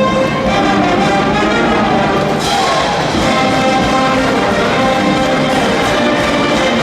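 High school brass band playing a cheering tune from the stands, with trumpets and trombones holding sustained notes. About two and a half seconds in, a bright hiss joins and the sound grows fuller.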